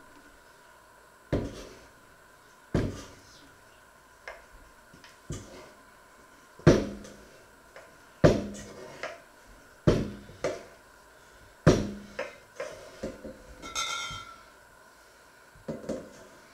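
Stainless steel mixing bowl knocking against a wooden worktop while dough is worked by hand in it: about a dozen irregular knocks, each ringing briefly.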